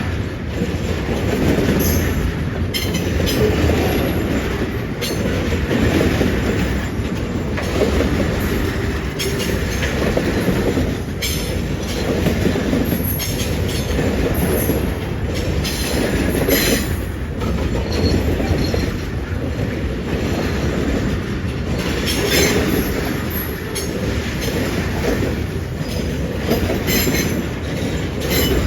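Loaded tank cars of a long freight train rolling past: a steady rumble of steel wheels on rail, with short squeals and clicks from the wheels now and then.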